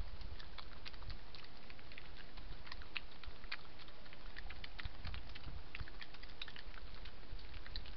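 Two badgers eating peanuts off the ground, a fast, irregular run of sharp crunches and clicks as they chew, over a low steady rumble.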